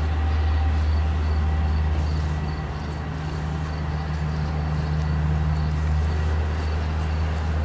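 Steady low ambient drone with faint high tones held over it: the relaxation background track that runs under the hypnosis narration.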